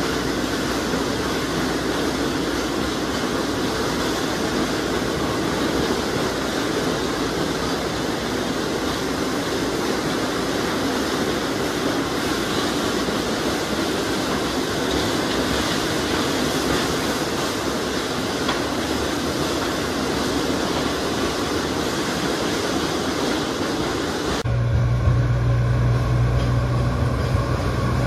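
Sugarcane tramway bins rolling past on narrow-gauge rails, a steady rolling rumble of steel wheels on track. About 24 seconds in, the sound changes abruptly to the steady low drone of an approaching cane-train diesel locomotive.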